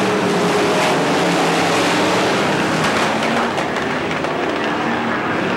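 A pack of dirt-track stock cars racing past together, several V8 engines running hard at once. Their overlapping tones waver up and down over a steady haze of engine and tyre noise.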